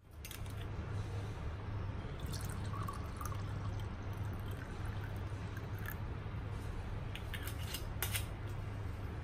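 Red wine being poured from a bottle into a wine glass, with a few small clicks, over a steady low hum.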